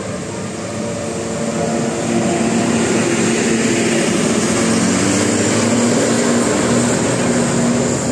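A motor vehicle driving past on the road: engine and road noise swelling from about two seconds in and easing near the end.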